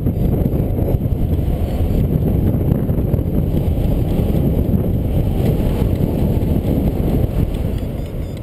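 Wind rushing over the microphone of a paraglider pilot's camera in flight: a steady, low buffeting rumble.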